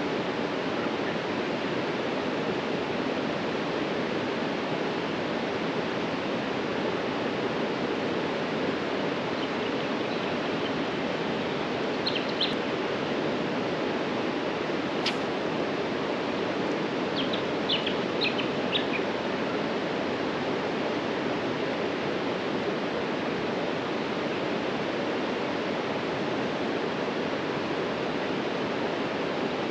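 Rushing water of a high, fast-flowing river, a steady even roar. Short high bird chirps come in about twelve seconds in and again a few seconds later, with a single sharp click between them.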